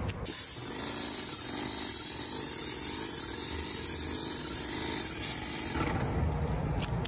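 Airless paint sprayer gun spraying paint: a loud, steady high hiss that starts abruptly just after the start and cuts off suddenly about six seconds in.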